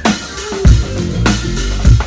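A live band playing loud music: a drum kit with heavy bass-drum hits about a second in and again near the end, cymbal wash, and deep held bass notes underneath.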